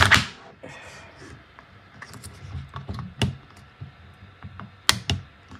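Hollow 3D-printed plastic engine-block parts being handled and lifted off a printer's textured print bed: a sharp click at the start, then scattered light plastic clicks and knocks, with two sharper clicks close together near the end.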